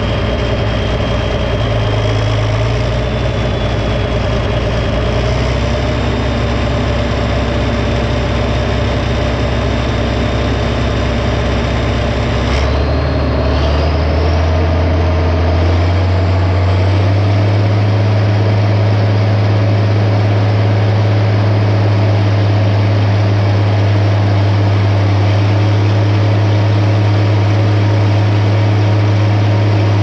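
International tractor's diesel engine running steadily, heard close up from the hood. About 13 s in there is a click, then the engine speeds up, its note rising with a climbing high whine, and it settles at a higher, steady speed under load, putting out black exhaust smoke.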